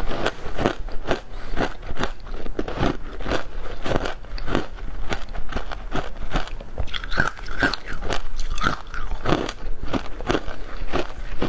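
Someone biting and chewing frozen passion fruit shaved ice: a steady run of crisp crunches, about two or three a second.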